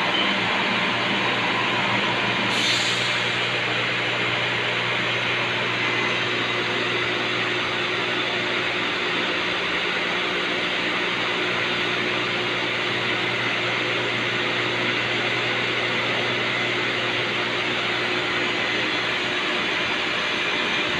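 Steady hum and whir of a Doosan CNC vertical milling machine running, with a brief hiss about two and a half seconds in.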